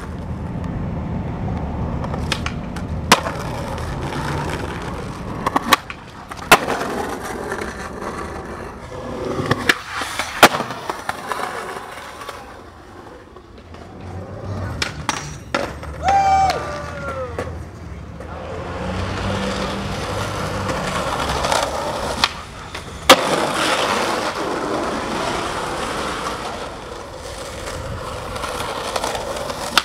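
Skateboard wheels rolling over rough concrete and asphalt, broken by sharp cracks of the board popping and landing, several times. A brief high squeal about halfway through.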